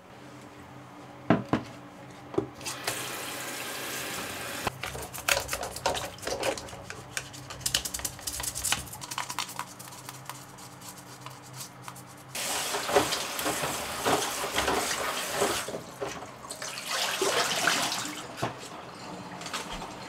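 Tap water running in stretches while the plastic lint filter parts of a top-loading washing machine are scrubbed and rinsed, with a few sharp plastic clicks near the start.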